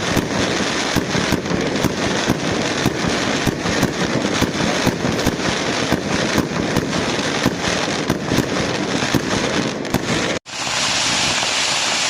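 Fireworks going off: a dense, continuous crackling with sharp bangs several times a second. It cuts off abruptly about ten seconds in, and a steady hiss follows.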